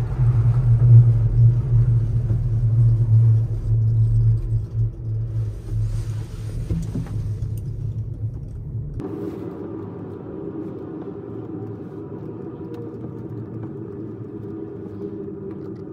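Banff Gondola cabin rumbling as it rides out of the terminal onto its haul cable. About nine seconds in the low rumble cuts off suddenly and gives way to a quieter, steady hum.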